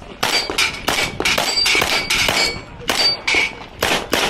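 Rapid string of 9mm pistol shots from a Beretta 92X Performance, fired in quick pairs and runs of about four or five a second with short pauses. Several shots are followed by the brief ring of steel plates being hit.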